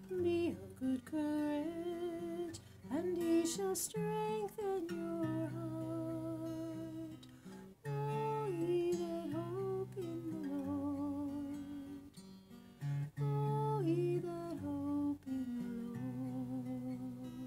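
A woman's voice carries the melody without clear words over an acoustic guitar. The melody wavers with vibrato and closes on a long held note near the end.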